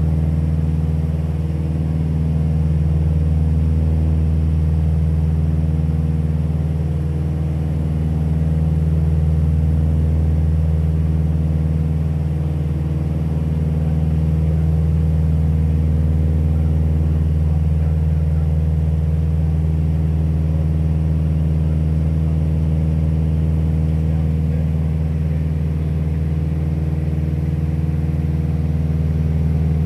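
Light airplane's engine and propeller running steadily, an even low drone heard from inside the cockpit.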